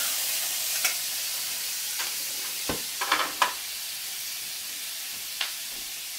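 Green beans frying in butter and garlic in a skillet, sizzling steadily, with several sharp clicks of metal tongs against the pan as they are tossed, a cluster of them about three seconds in.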